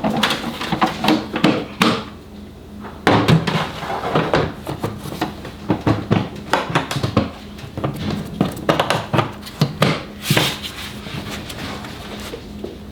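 Festool CSC SYS cordless table saw being lifted and set onto its UG under frame: a string of irregular knocks, bumps and clunks, the heaviest about 3 seconds in and about 10 seconds in.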